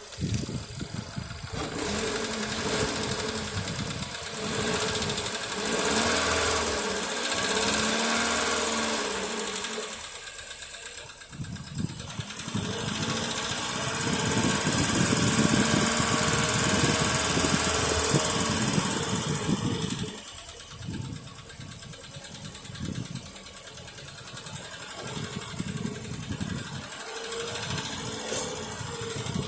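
1.4 TSI (CAXA) turbocharged four-cylinder petrol engine running with a rapid ticking knock, revved up and back down twice before settling to idle. The knock comes from a hydraulic valve lifter (lash adjuster).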